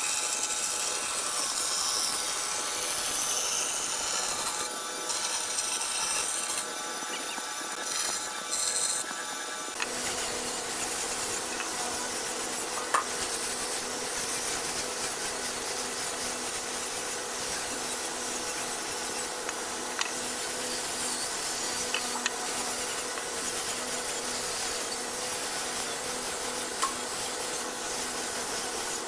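A band saw running and cutting through a thick hardwood panel, then, after an abrupt change about ten seconds in, a handheld power tool's spinning wheel rubbing across a wooden chair back over a steady motor hum.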